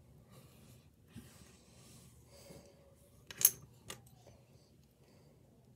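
Plastic Lego pieces being handled and pressed together: faint rustling, then a sharp click a little over halfway through and a softer click about half a second later.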